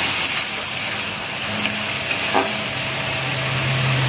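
A pan of potatoes and radishes cooking in spiced oil and a little water, giving a steady sizzling hiss. There is a faint click about two and a half seconds in, and a low hum comes in near the end.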